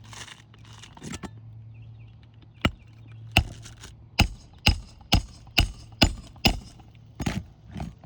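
Hammer striking a roofing nail about ten times, one blow, then a steady run of about two a second, driving the nail down flush through the shingle. The nailer had left it standing about a quarter inch proud.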